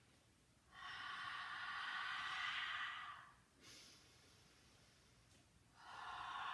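A woman's long, heavy breath out through the open mouth, a hushing exhale of about two and a half seconds, then a second one starting about six seconds in.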